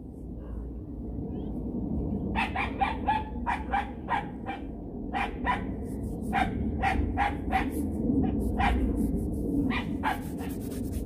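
A dog barking in a long run of short, sharp barks, two or three a second, starting about two seconds in.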